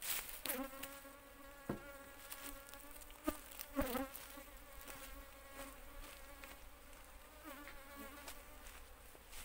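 Asian honey bees (Apis cerana) buzzing in flight around their box hive, a steady hum that wavers slightly in pitch. A few knocks come in about two, three and four seconds in.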